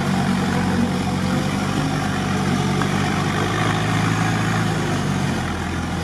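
Off-road 4x4's engine running steadily at low revs, heard from inside the cab as the vehicle crawls over a sandy track.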